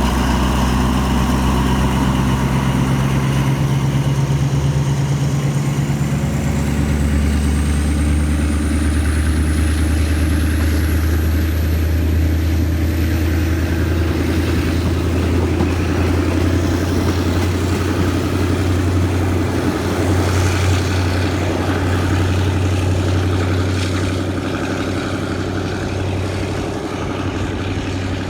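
Alsthom AHK diesel-electric locomotive's engine running loud with a deep steady drone, its note shifting about six seconds in. A thin high whine rises steadily in pitch over the next several seconds, as when the locomotive takes up power and the train starts moving.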